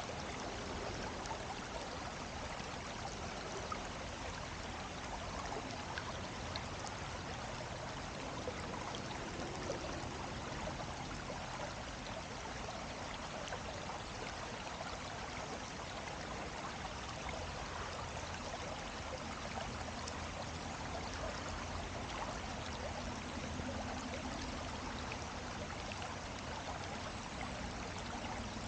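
Steady rush of running water, a stream flowing over rocks, with a few faint ticks.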